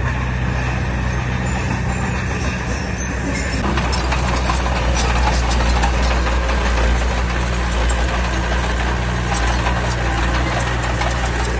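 Heavy diesel engine of earthmoving machinery running steadily, with clattering and scraping noise added from about four seconds in.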